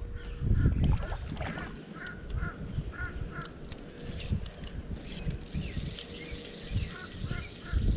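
A bird calling in short series of repeated harsh notes, a run of about five near the start and another beginning near the end, over low rumble and thumps.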